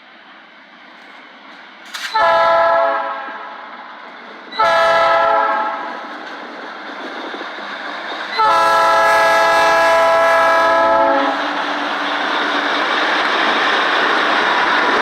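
GE B23-7 diesel locomotive's air horn sounding three blasts, two short and then one long of nearly three seconds, over the growing noise of the approaching train rolling on the rails.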